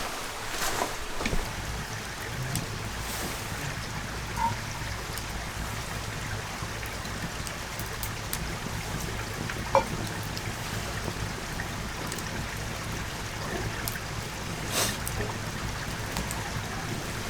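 Oak-log campfire burning: a steady hiss with scattered sharp crackles and pops, a louder pop about halfway through and another near the end.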